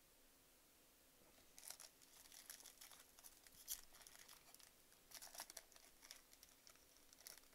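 Foil wrapper of a baseball card pack being torn open and crinkled by hand: a run of quiet, sharp crackles starting about a second and a half in, the loudest a little before the middle.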